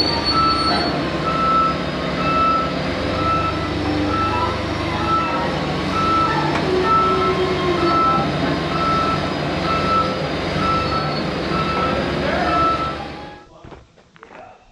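Crawler bulldozer's diesel engine running while its backup alarm beeps steadily, about twice a second, as the dozer reverses. The sound stops abruptly near the end.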